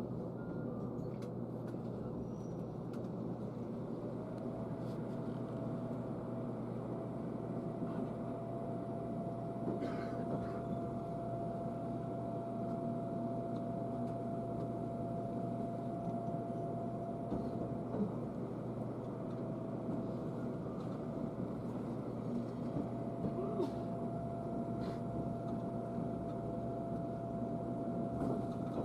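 Steady running noise of a train heard from inside the passenger car. About four seconds in, a steady electrical whine comes in and holds.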